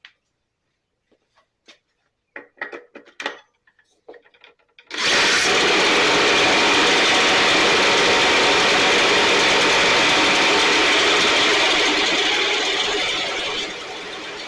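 A few knocks and clatters, then about five seconds in the STIHL BR 450 backpack blower's two-stroke engine starts and runs loud and steady with the fan rushing. Near the end it drops back to a lower, idling level.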